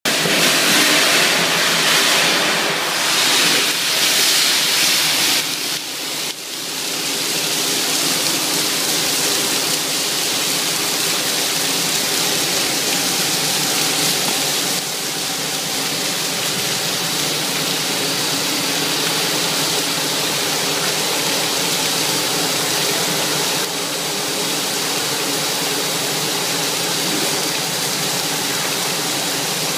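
ViscoClean CIP spray nozzle jetting water against the inside walls of a metal tank, a steady rushing spray with a brief dip about six seconds in. A faint steady hum runs underneath.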